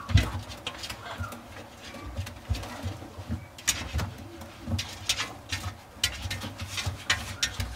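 Shredded paper bedding rustling and crinkling in many short, irregular clicks as a puppy shifts on it and a hand handles it, over soft low bumps.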